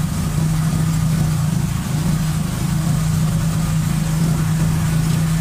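Vehicle engine running steadily with road noise, heard from inside the moving vehicle; a strong low hum holds one even pitch.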